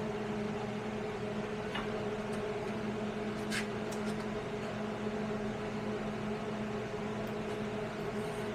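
Steady machine hum at an even level, with a couple of faint clicks about two and three and a half seconds in.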